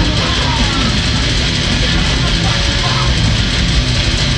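Heavy instrumental rock jam played live on electric guitar, bass guitar and drums, loud and dense with no break.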